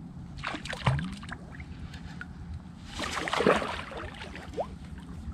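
Two bursts of water splashing and sloshing around a fishing kayak, the second longer and louder, over a steady low rumble. A short rising squeak comes near the end.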